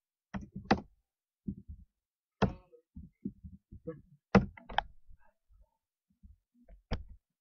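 Computer keyboard being typed on: irregular clicks and knocks of keys being struck, a few much louder than the rest.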